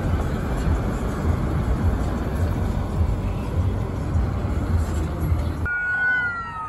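Steady rumble of traffic and wind noise on the phone microphone. Near the end it cuts abruptly to an emergency vehicle siren wailing with falling pitch.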